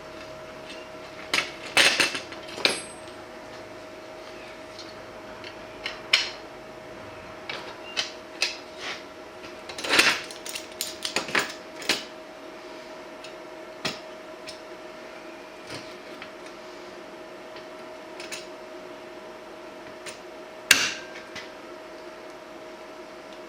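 Hand tools and metal parts clinking and knocking at the bench as aluminum rivet nuts are set into thin sheet metal: scattered sharp clicks and clanks, bunched near the start and around the middle, with one loud knock near the end, over a steady background hum.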